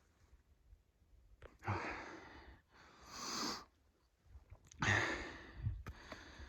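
A man breathing hard: three loud, noisy breaths a second or two apart while climbing a steep trail.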